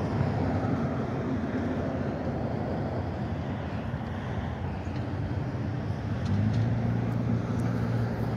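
A large engine running steadily with a low hum over a rushing noise; the hum grows louder about six seconds in.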